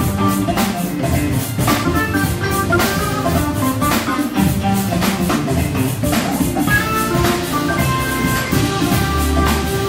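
Live jazz band playing: electric guitar and Hammond B3 organ over a steady drum beat.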